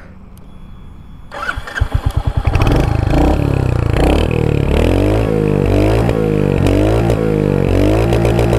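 Royal Enfield Hunter 350's 349 cc single-cylinder engine being started on the electric starter. It cranks for about a second before catching, then idles and is revved up and down several times with short throttle blips.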